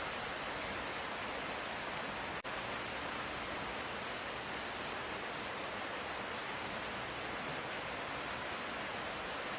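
Steady light rain, an even hiss with no distinct drops or thunder. It cuts out for an instant about two and a half seconds in.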